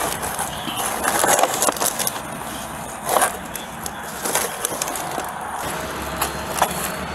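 Rough rustling and scraping noise, broken by several short knocks and scuffs about a second apart in places.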